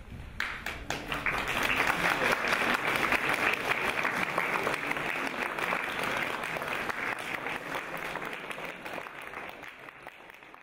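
Theatre audience applauding a curtain call: the clapping starts about half a second in, swells quickly, then gradually fades over the last several seconds.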